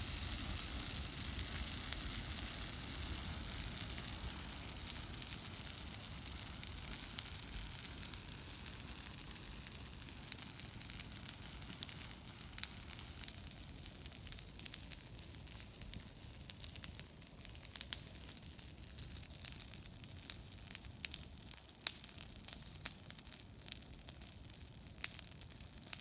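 Christmas tree bonfire burning: a steady rushing hiss of flame that slowly fades as the fire dies down, with sharp crackles and pops growing more frequent through the second half.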